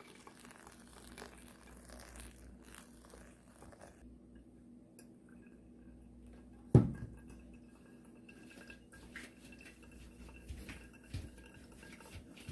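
Brewed coffee trickling faintly from a pour-over dripper into a glass server. One loud knock about halfway through, like crockery or glassware being set down.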